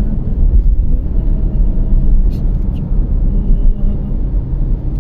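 Steady low rumble of a car's engine and tyre noise, heard from inside the cabin while driving.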